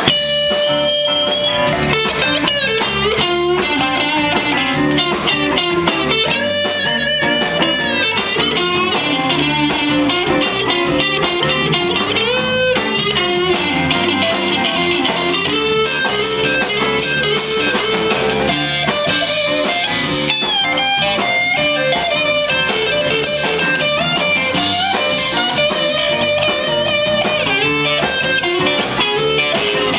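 Live blues-rock band playing an instrumental passage: a lead electric guitar carries the melody with notes that bend up and down in pitch, over bass guitar and drums.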